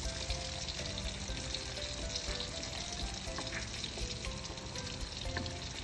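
Food frying in hot oil in a pan: a steady sizzle with fine crackles throughout.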